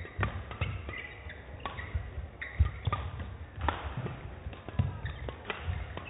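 Badminton rally in doubles: rackets strike the shuttlecock again and again, as sharp knocks every half second to second. Shoes squeak and thud on the court floor between the strikes.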